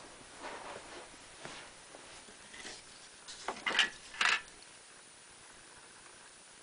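Spray paint cans being handled and set down: light rustling, then a short cluster of knocks and clatter about three and a half to four seconds in.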